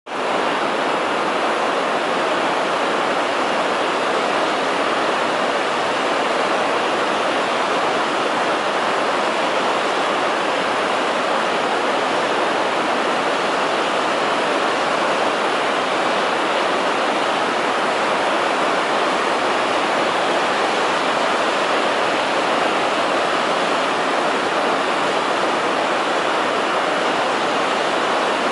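Mountain river rushing over boulders in white-water rapids: a loud, steady rush of water.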